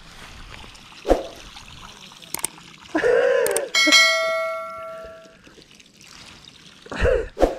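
A sharp metallic strike that rings with several clear tones and dies away over about a second and a half, among water splashing and dribbling as a fishing lift net is worked in the river.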